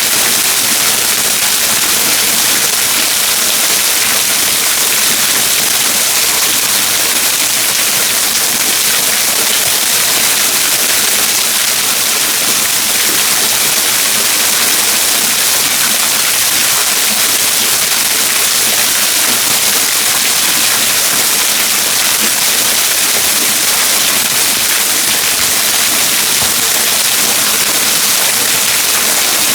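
Waterfall running steadily: a loud, even hiss of falling water that does not change.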